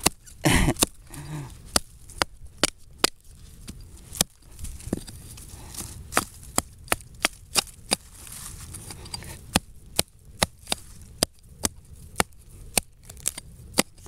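Small hatchet chopping into a tree root in leaf-littered soil: a steady run of sharp chops, roughly two a second, about thirty in all, the heaviest about half a second in.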